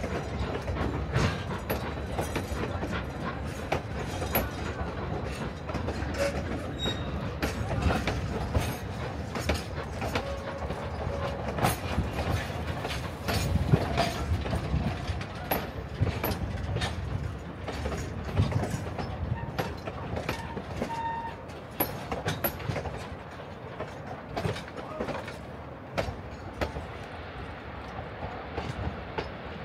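Narrow-gauge passenger train rolling past: steel wheels click and clatter over rail joints with a low rumble, and there are a few brief squeals from wheel flanges.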